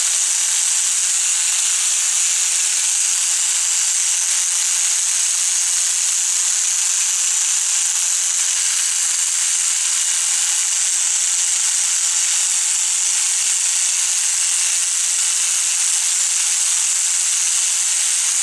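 Electric toothbrush running steadily, its spinning bristles scrubbing foam cleaner off the metal base of a radio valve, giving a constant high hiss.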